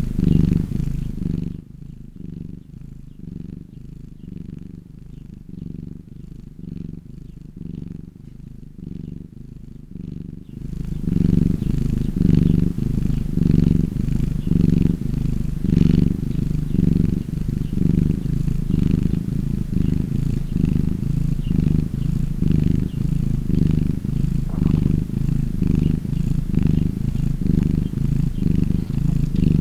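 Domestic cat purring: a steady low rumble that swells and fades with each breath, about once a second. It grows louder about a third of the way in.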